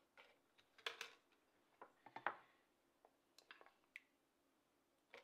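Faint kitchen handling noise: a few short clicks and light taps as lasagna noodle sheets are laid into a metal springform pan and a bowl is handled, the loudest tap about two seconds in.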